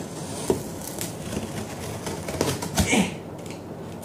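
Utility knife slitting the packing tape along the seam of a cardboard box: the blade scraping over tape and cardboard, with a sharp click about half a second in and a louder stretch of scraping just before the end.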